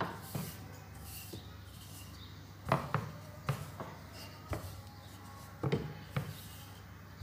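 Rolling pin working a sheet of donut dough on a floured mat: quiet rubbing and rolling with a few soft, scattered knocks as the pin and hands press and shift on the dough.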